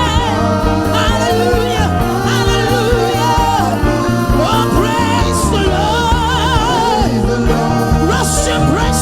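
Gospel worship music: a voice singing long, wavering melodic lines without clear words over sustained bass and keyboard-like chords.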